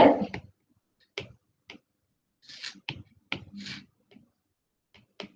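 A stylus tapping and stroking on a tablet's glass screen during handwriting: a string of short clicks and brief scratches, about two a second, with silent gaps between them.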